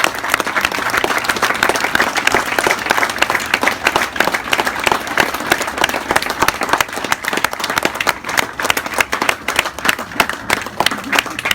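Crowd applauding: many hands clapping fast and densely, thinning out near the end.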